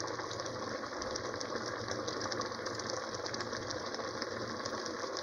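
Shredded carrots and sugar syrup for carrot jam bubbling in a steel pot, a steady fine crackle of many small bubbles popping.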